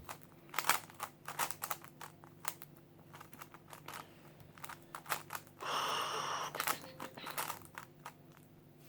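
Quick, irregular clicking and clacking of a GAN speedcube's layers being turned during a timed solve, several clicks a second, with a brief hiss lasting about a second about six seconds in.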